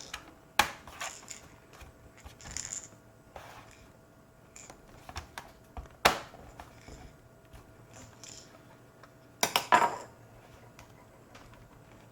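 Sharp clicks and small clatters of hard plastic and metal laptop parts being handled and fitted together, with light scraping between them. The loudest clicks come about half a second in, about six seconds in, and as a quick cluster near the end.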